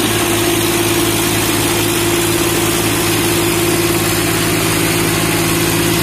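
Swaraj 963 tractor's diesel engine idling steadily, a constant low throb with no revving.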